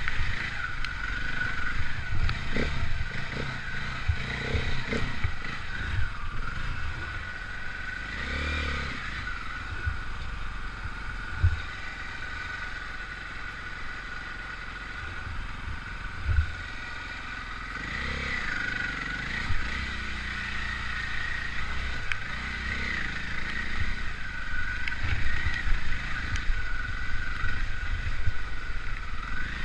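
Enduro motorcycle engine revving up and down as the bike rides a rocky trail, with clatter and a few sharp knocks of the bike striking stones.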